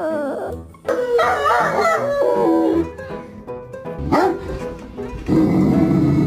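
A dog howling in drawn-out, wavering calls, a long one about a second in and a short one around four seconds, over background music.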